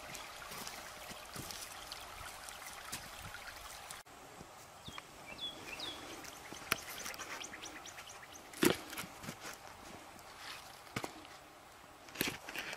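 Shallow creek water trickling for the first few seconds. Then small birds chirp, and a few knocks sound as dry dead-wood logs are handled and set against one another, the loudest about two-thirds of the way through and another near the end.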